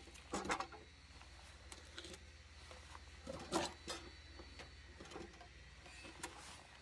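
A few faint, scattered knocks and rustles, the handling noises of wood being moved about, over a low steady hum.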